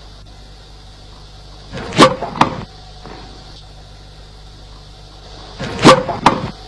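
Two tennis serves, about four seconds apart. Each is a sharp crack of the racket striking the ball, followed by a second, slightly quieter knock less than half a second later. A steady hiss runs underneath.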